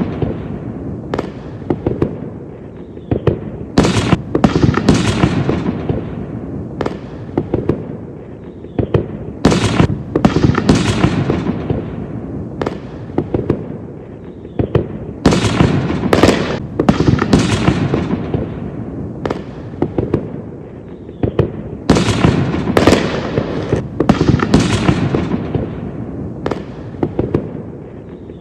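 Fireworks going off in quick succession: sharp bangs in clusters, each trailing off in crackle, over a constant rumble of further explosions.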